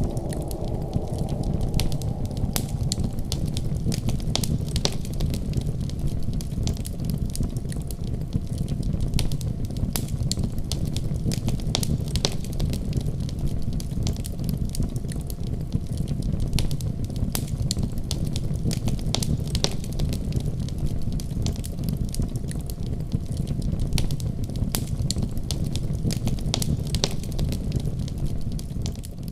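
Wood fire burning in a fireplace, crackling with many small sharp pops over a steady low rumble, starting to fade out near the end.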